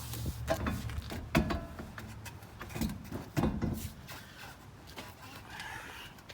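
Irregular metallic clinks and knocks of hand tools working on a car's rear brake caliper and its bolts, some briefly ringing, over a low hum that fades out during the first half.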